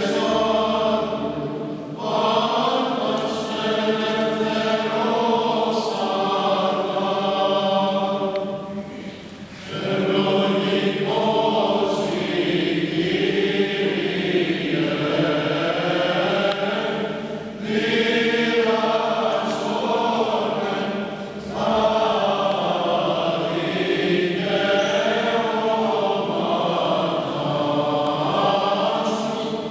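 Mixed choir of men and women singing Byzantine chant unaccompanied, the melody moving over a steady low held note, in long phrases broken by short pauses for breath.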